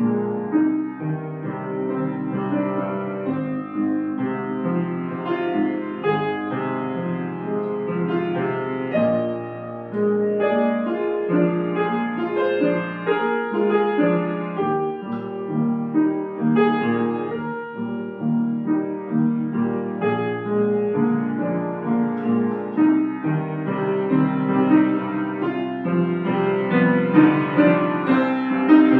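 Solo piano playing classical music, a steady flow of notes across the middle register.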